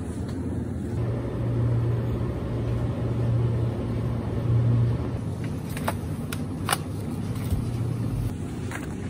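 Supermarket background noise: a steady low hum and rumble, with a few sharp clicks past the middle.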